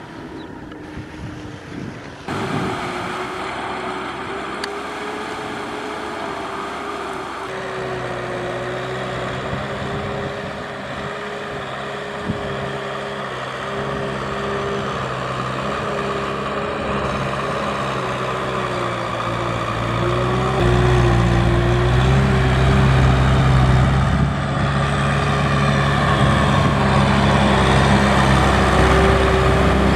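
Kubota M6040 tractor's diesel engine running steadily as it pulls a loaded trailer through deep mud. It grows clearly louder about two-thirds of the way through.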